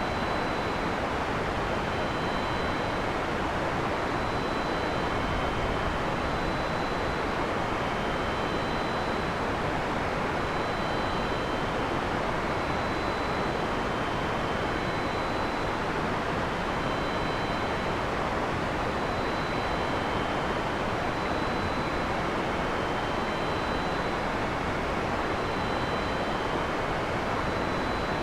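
Heavy rain pouring steadily, an even, unbroken hiss with no thunder.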